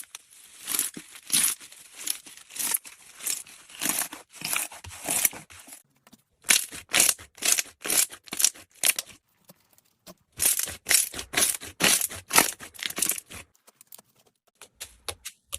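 Slime being pressed and squished by hand, making rapid runs of sticky crackling pops in three stretches with short pauses between them.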